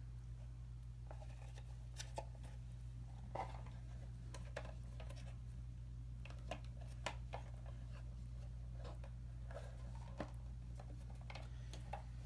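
Scattered light plastic clicks and taps from handling a Bruder toy dump truck as its half-pipe tipper body is raised, over a steady low hum.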